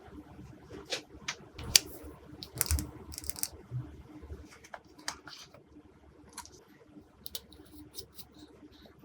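Glossy slime being worked by hand: irregular sticky clicks and crackling pops. The pops are louder and denser in the first half and fall to lighter, scattered clicks later.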